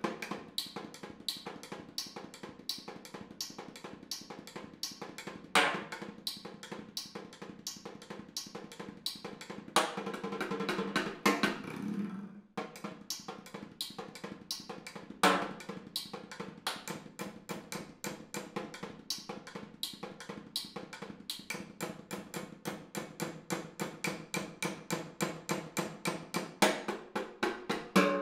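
Solo snare drum played with sticks: a steady stream of quick, sharp strokes with a loud accent every few seconds and a brief pause about twelve seconds in. Over the last ten seconds the strokes grow gradually louder.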